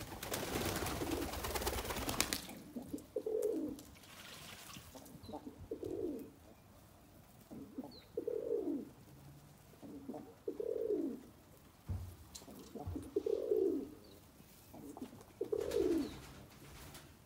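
Domestic racing pigeons cooing: a low coo that falls in pitch, repeated about every two and a half seconds. In the first two seconds there is a rush of wing flapping.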